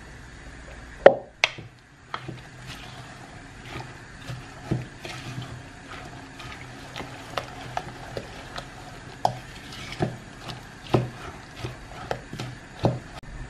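Wooden spoon stirring a chunky mix of chopped onion and broccoli in a glazed mixing bowl: irregular soft knocks and scrapes of the spoon against the bowl, with one sharper knock about a second in.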